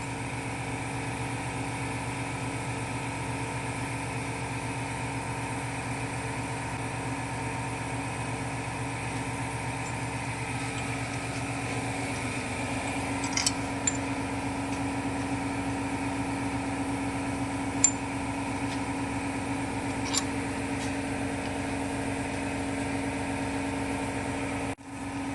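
A machine running with a steady, even hum, with a few light clicks or taps now and then.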